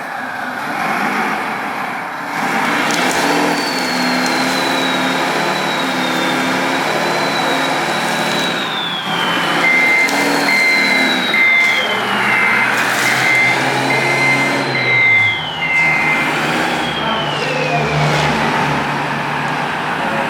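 Radio-controlled scale construction models working: electric motors and pumps whining, rising and falling in pitch, over a low engine-like hum. For about six seconds midway a steady series of beeps sounds, roughly one a second, like a reversing alarm.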